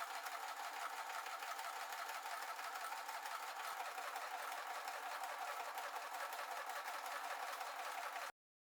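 A small machine running steadily with a fast, fine rattle, cutting off suddenly near the end.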